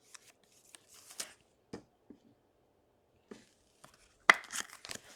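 Trading cards being handled and flipped through by hand: short, scattered rustles and clicks of card stock sliding against card stock, with a sharper snap and a quick cluster of rustles about four seconds in.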